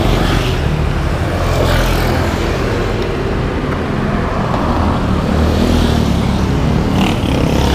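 Road traffic: motor vehicles running and passing by, a steady low hum of engines with tyre noise.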